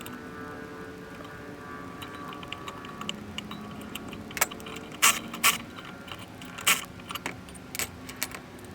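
Metal hand tools clinking and tapping against metal: a scatter of sharp clicks, the loudest around the middle, over a faint steady hum.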